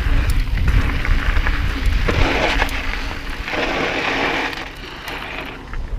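Specialized Stumpjumper mountain bike riding along a dirt singletrack: tyres running over dirt and gravel with small rattles and clicks from the bike, and wind buffeting the bike-mounted microphone. Two stretches of louder hiss come near the middle.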